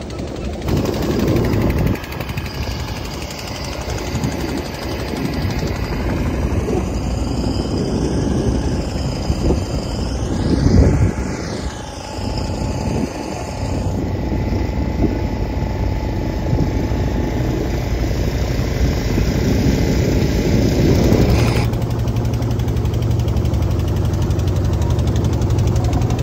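Tourist motor boat's engine running steadily as the boat cruises, a continuous low drone with a louder swell about eleven seconds in; the sound changes abruptly a few times.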